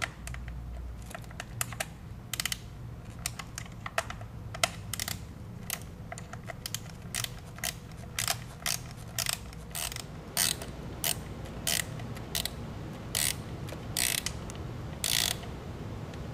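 Ratchet wrench clicking in short strokes as two 8 mm bolts are backed out: irregular sharp clicks, about one or two a second, with a few longer ratcheting rasps near the end.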